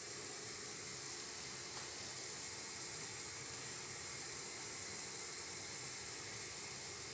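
Steady background hiss with no distinct sounds in it.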